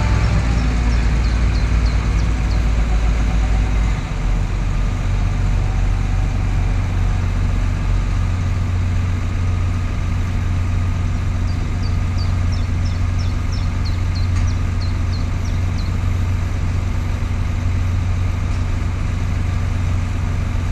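Diesel engines of a John Deere 7280R and a Valtra tractor running hard as the Valtra pulls the mired John Deere and its plough out of wet ground. The deep drone drops somewhat about four seconds in, then runs steadily.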